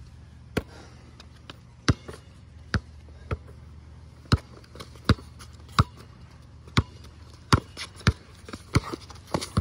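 Basketball dribbled on a concrete court: a steady run of sharp bounces, roughly every two-thirds of a second, with a steady low hum underneath.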